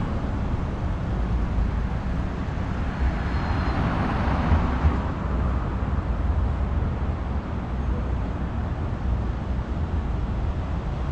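City street traffic noise: a steady low rumble, swelling as a vehicle passes about four to five seconds in.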